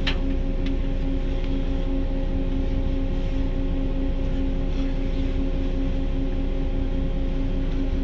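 Steady electrical hum over a low rumble inside a Detroit People Mover car, a UTDC ICTS Mark I automated train. There is a single sharp click right at the start.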